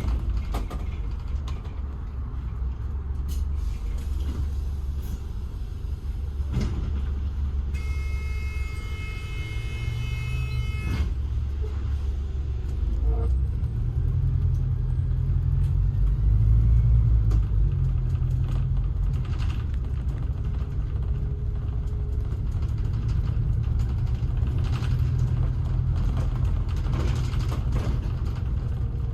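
Steady low rumble of a road vehicle in motion. A steady pitched tone sounds for about three seconds near the middle.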